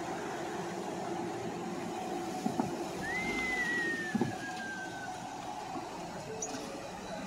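Street traffic and vehicle engine hum at night, with a faint thin whine sliding down in pitch about three seconds in and a couple of soft knocks.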